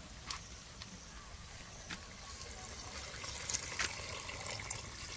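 Water poured from a plastic container into a metal pot of beef stew, a trickle building from about halfway, with a few light knocks from handling.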